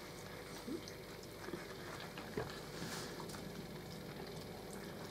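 Quiet eating at a table: a few faint, scattered clicks and taps of forks against plates, with soft mouth sounds, over steady low room noise.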